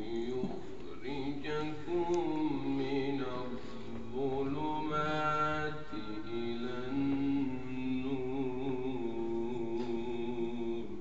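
A male voice reciting the Quran in the melodic tajwid style, in long held phrases with wavering ornaments on the notes and short breaks for breath.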